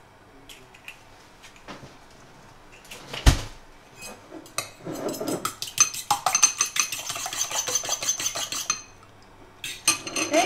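An egg being beaten in a ceramic bowl with metal cutlery: a fast, even clicking of metal against the bowl for about three seconds, with a few more clinks near the end. A single thump about three seconds in comes first.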